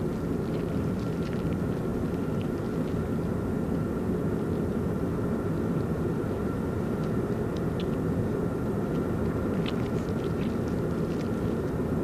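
A steady low rumble with a faint, even high hum above it, and a few faint clicks in the second half.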